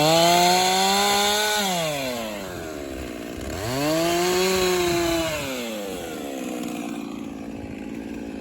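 Husqvarna 394 XP two-stroke chainsaw revved up twice, its engine pitch rising, holding and falling each time. It then runs lower and steadier and dies near the very end as it runs out of fuel.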